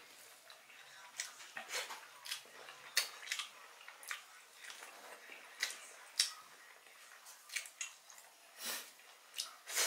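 A person chewing grilled chicken and rice eaten by hand, with irregular wet mouth clicks and smacks about once or twice a second.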